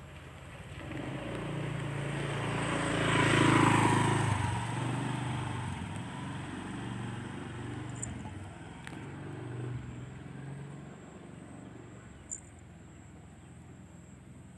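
A motorbike passing along the lane: its engine grows louder to a peak about three and a half seconds in, then fades away over the next several seconds.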